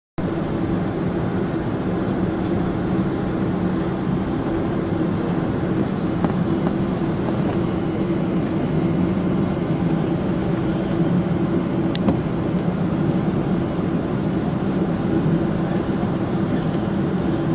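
Cabin noise of a Boeing 777-200ER taxiing: the twin jet engines at low power give a steady rumble with an even low hum.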